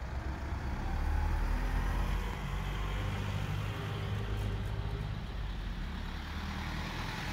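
Rescue truck's engine running with a steady low rumble as the truck drives toward the camera.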